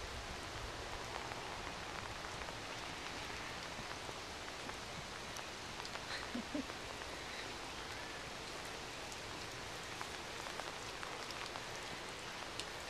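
Steady rain falling on the ground and the trailer, with occasional faint ticks of drops.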